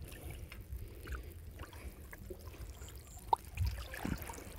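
Faint lapping and sloshing of canal water around a man wading chest-deep, with a low rumble and a few small clicks; a sharp tick about three seconds in and a low thud near the end.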